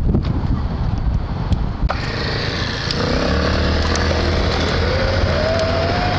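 Front hub motor of a ViVi Charge electric-assist bicycle whining under way, its whine rising steadily in pitch over the last few seconds as the bike gathers speed, over wind noise on the microphone.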